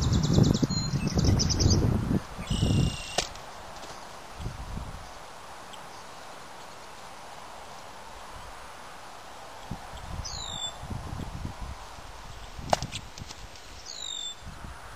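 Birds chirping: short high trills near the start and two single sweeping calls later on. Low rumbling noise in the first few seconds and one sharp click about two-thirds through.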